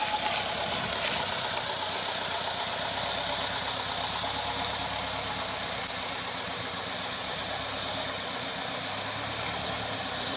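Excavator's diesel engine running steadily at a low, even speed, with a faint click about a second in.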